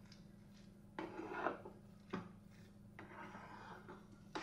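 A spatula stirring thick semolina kesari in a nonstick frying pan: faint scraping against the pan, with four sharp taps about a second apart.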